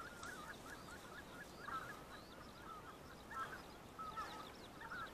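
A flock of wild geese calling, many faint, short, chattering calls overlapping continuously.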